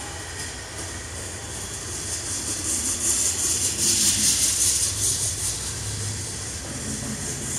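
Freight cars of a long mixed manifest train rolling past close by: a steady rumble and hiss of steel wheels on the rails with a repeated clatter as the trucks go by, swelling to its loudest about halfway through.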